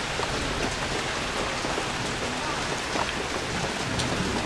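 Rain falling steadily, on the edge between moderate and heavy: an even hiss with now and then a single sharper drop hit.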